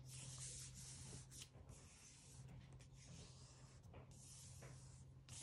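Faint rubbing and brushing of hands pressing and smoothing creases into folded paper, in several short strokes.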